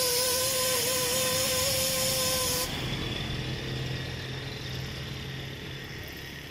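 Air-powered buffing grinder running with a steady high whine and a loud hiss of air while it roughens the inner liner of a tubeless motorcycle tire around a puncture. It stops about two and a half seconds in, leaving a fainter hiss of air.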